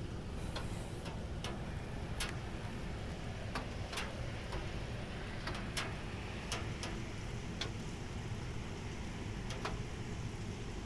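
Rainwater dripping after a summer rain shower: irregular, sharp drips, roughly one to two a second, over a steady low rumble.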